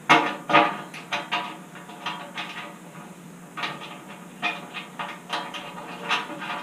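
Metal clinking and clanking as a wrench turns a nut onto the threaded rod that tensions a snow plow's return spring: about fifteen short, ringing strikes, often in quick pairs, over a steady low hum.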